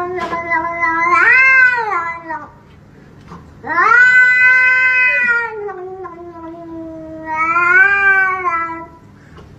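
Grey short-haired cat yowling at a hand reaching toward it: long, drawn-out wails that rise and fall in pitch, with a short break around 3 seconds in.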